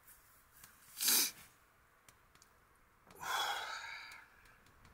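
A man's breathing: a short, sharp breath through the nose about a second in, then a longer sighing breath out, with some voice in it, about three seconds in.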